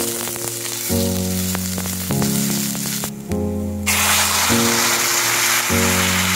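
Sliced peppers, carrots and onions sizzling in a hot pan while being stirred, with short spatula scrapes against the pan. About four seconds in, coconut milk is poured in and the sizzle becomes a louder, steady hiss. Background music with a steady bass line plays throughout.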